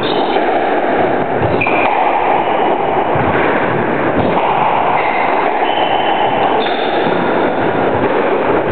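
Squash rally on a wooden court: high squeaks of shoes on the floor and a few knocks of play, under a steady, loud rushing noise.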